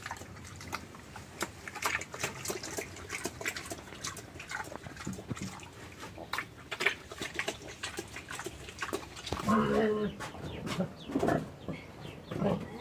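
A large pig eating wet grain mash from a metal basin: irregular chomping, smacking and slurping. A brief call cuts in near the end.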